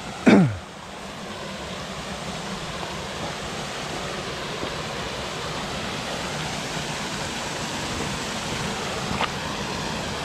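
Steady rushing of a mountain stream. Just after the start, a brief loud sound sweeps quickly down in pitch.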